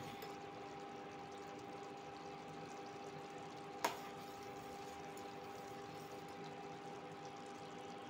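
Sugar syrup bubbling at a rolling boil in a steel saucepan as a steel spoon stirs it, over a steady hum. The syrup is being cooked down to one-thread consistency. About four seconds in, the spoon knocks once, sharply, against the pan.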